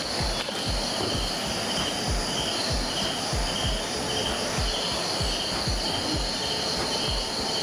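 Crickets chirping in a steady rhythm, about two chirps a second, over a constant high insect drone. A soft low pulse beats underneath about twice a second.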